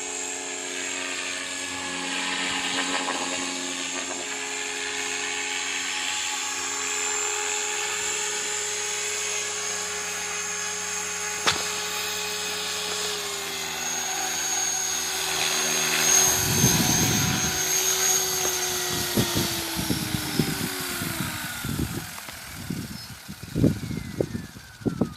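Align T-Rex 500 radio-controlled helicopter running with a steady high whine from its motor and rotor. Past the middle the pitch sinks steadily as the rotor spools down, and irregular low thumps come in near the end.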